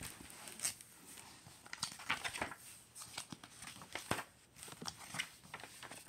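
Paper pages of a hardcover picture book being handled and turned: soft, scattered rustles and light taps.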